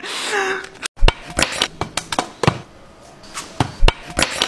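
An irregular series of sharp knocks or whacks, about eight or nine over three seconds, starting after a sudden cut about a second in.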